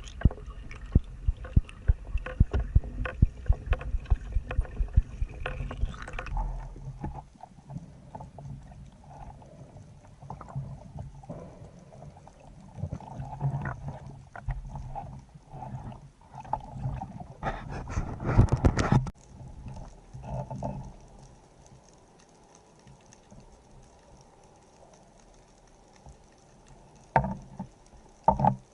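Water and gear noise from a spearfisher's camera: a rapid run of clicks and knocks for the first six seconds, then scattered splashing noise with a louder rush of noise about 18 seconds in. After that it goes fairly quiet, with two short knocks near the end.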